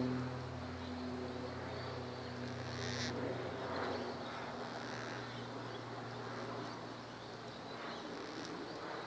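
Gang-gang cockatoos giving a few raspy, creaky calls about three to five seconds in and again near the end. Under the first calls a low steady hum fades out about three seconds in.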